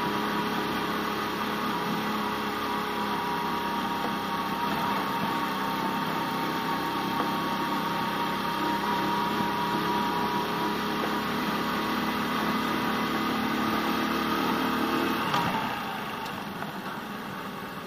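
Small scooter engine running steadily while riding, with wind and road noise. About fifteen seconds in, the engine note drops away and the overall sound gets quieter as the throttle is closed.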